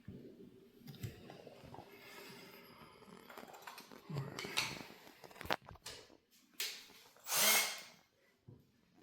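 Small handling noises: scattered light clicks and rustles, with a louder scrape or rustle lasting about half a second near the end.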